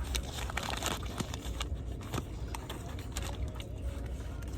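Close-up eating sounds from a fast-food meal: scattered crackles and clicks of food and wrapper being handled and chewed, over the low steady rumble inside a car.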